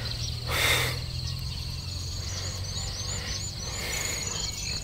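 Rural field ambience: insects and birds chirping with a steady run of short high repeated chirps, over a low steady hum. A brief rustle comes about half a second in.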